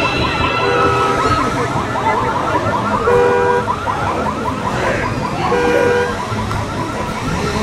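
Car alarm sounding: a fast, repeating rising whoop, with short two-tone beeps about every two and a half seconds.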